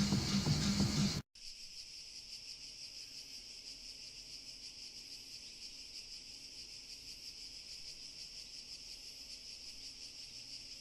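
Loud music cuts off abruptly about a second in, leaving crickets chirring steadily, a high, fast-pulsing insect chorus.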